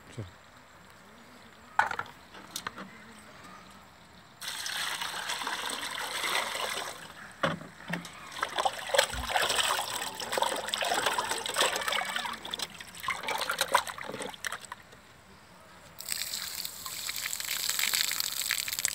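Water splashing and sloshing in a bowl as hands rub and wash freshly cleaned eels. Near the end, water pours out of a tipped steel pot and splatters onto the ground.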